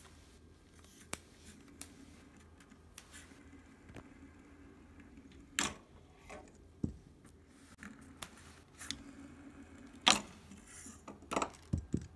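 A cat's paw batting a plastic fidget spinner on a wooden tabletop: scattered clicks, knocks and scrapes, the sharpest about halfway through and several more near the end.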